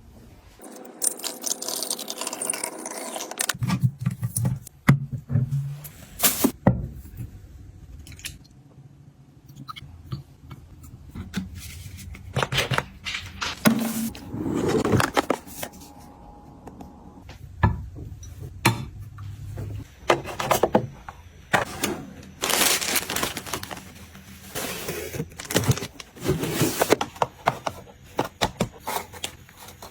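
Groceries, packaging and storage containers being handled while a kitchen and fridge are restocked: irregular clicks and knocks with rustling of packaging in between.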